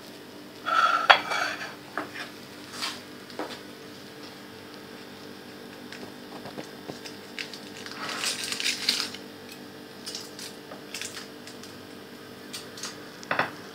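Ceramic plate and cutlery clinking and scraping on a countertop in a few short clatters, the busiest about eight to nine seconds in, over a faint steady hum.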